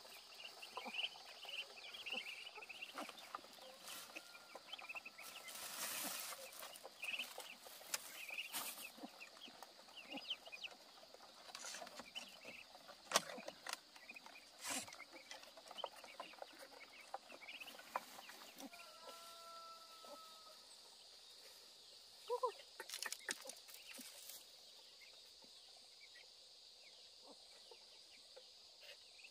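Chickens clucking and chicks peeping in short high chirps, with a few sharp knocks and a steady high background drone; it grows quieter near the end.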